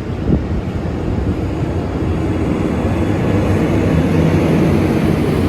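Departing passenger train rolling past, a steady rumble of wheels on rails. The diesel engine of its pushing Siemens SC-44 Charger locomotive grows gradually louder toward the end as the locomotive approaches.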